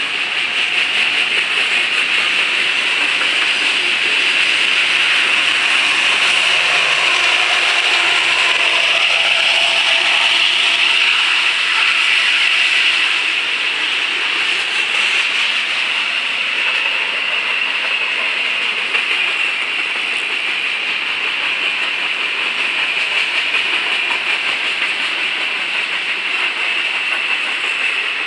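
Freight cars rolling past close by: steady noise of steel wheels on the rails, a little louder in the first half.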